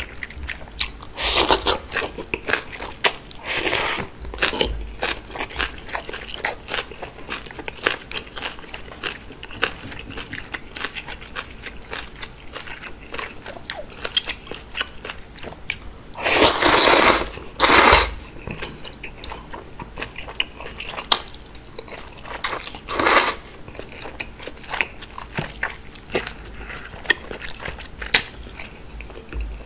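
Close-up eating sounds: chewing, crunching and wet mouth noises as cold udon noodles and kimchi are eaten. There are several short, loud bursts of noodle slurping, the longest about two-thirds of the way through.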